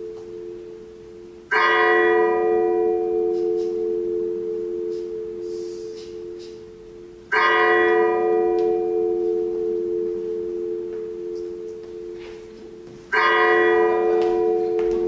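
A bell tolling three times at an even, slow pace, about six seconds apart. Each stroke rings on and fades slowly.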